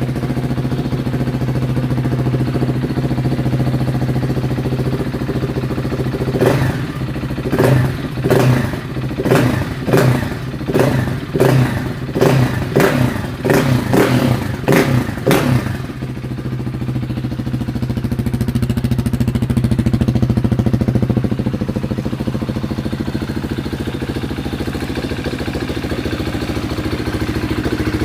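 2020 KTM 690 SMC R's single-cylinder engine idling through a Tekmo titanium header and DVR slip-on with the dB killer fitted. From about a quarter of the way in it is blipped about a dozen times in quick succession, roughly once a second, then settles back to idle.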